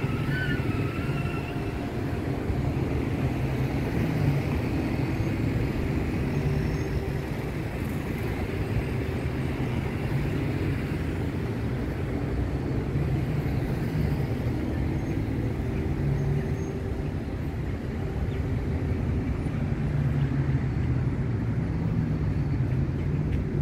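Street traffic: cars and a motorbike driving past, a steady traffic noise with engines swelling and fading as vehicles go by.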